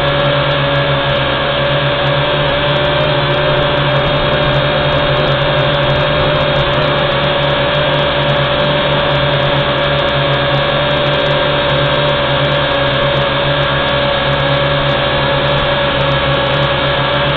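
WLToys V686G quadcopter's motors and propellers running steadily in flight: a loud, even whine that holds one pitch, heard close up through the drone's own onboard camera.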